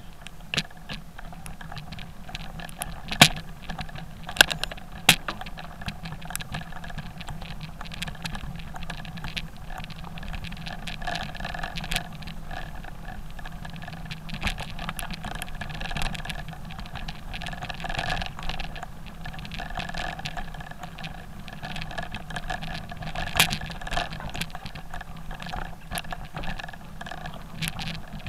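Mountain bike riding over a loose, stony dirt track: tyres crunching on gravel under a constant rattle, with sharp knocks as the bike jolts over rocks, the loudest about three seconds in.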